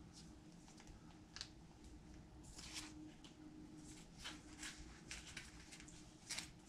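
Faint rustling and sliding of comic books as they are leafed through and shuffled between piles on a table: a few brief soft paper swishes over a low room hum.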